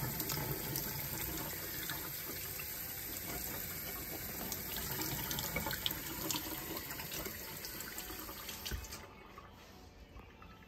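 Kitchen faucet running into a stainless steel sink, the stream splashing over a whole fish held under it as it is rinsed. The water shuts off near the end, about nine seconds in.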